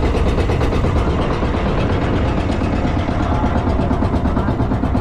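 Engine of a motorized outrigger boat (bangka) running steadily under way, with a fast, even pulse.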